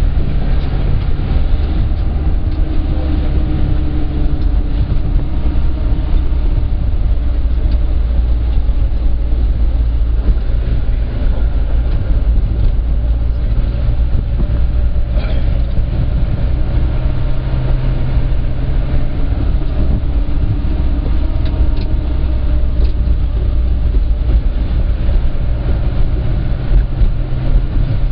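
Minibus engine and road noise heard from inside the cabin: a steady low drone whose pitch drifts slightly up and down as it drives along.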